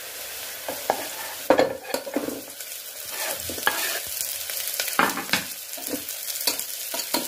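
Sliced onions and green chillies sizzling in hot oil in an aluminium pressure cooker, stirred with a wooden spoon, with irregular knocks and scrapes of the spoon and a knife against the pot.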